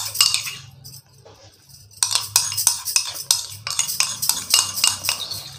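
Metal spoon scraping and clinking against a glass bowl as thick curd is pushed out of it onto chicken in a ceramic bowl. A quick run of scrapes and clicks, a pause of about a second, then a longer, busier run.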